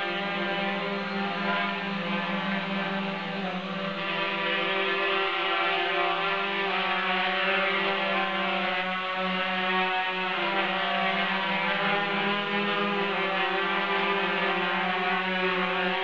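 Gaui 330X quadcopter hovering, its four electric motors and propellers making a steady buzzing hum. The pitch wavers slightly up and down as the rotor speeds adjust.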